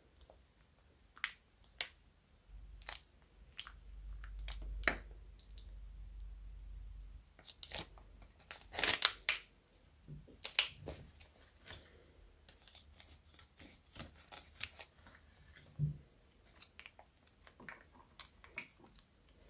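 Clear slime being squeezed out of a plastic piping bag: the thin plastic crinkles and the slime gives scattered small clicks and crackles, busiest in the middle. A low rumble runs under it from about three to seven seconds in.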